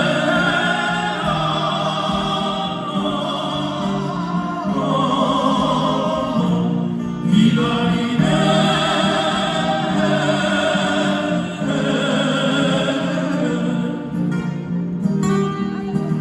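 A group of voices singing together in long held notes over strummed acoustic guitars: a live performance of a Korean folk-pop song.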